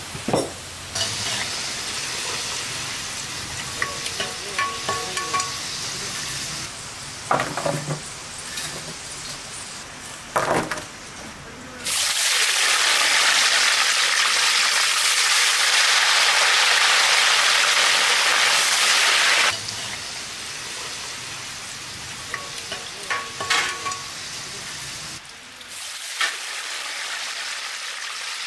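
Cut potato fries deep-frying in hot oil in a cast-iron wok: a loud, even sizzle for about seven seconds in the middle, with quieter frying and clinks of utensils and pans before and after it.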